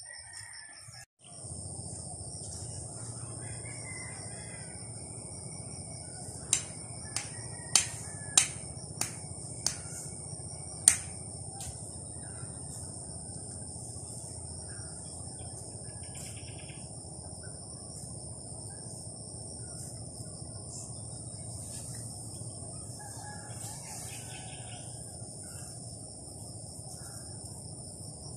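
Steady high insect trilling over a low steady outdoor rumble, with faint bird calls now and then. About a quarter of the way in comes a quick run of about seven sharp clicks.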